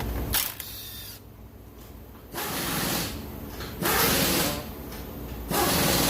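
A 12 mm ratchet working the ABS sensor bolt on a Hyundai Elantra's front strut and knuckle, in repeated short bursts about every second and a half.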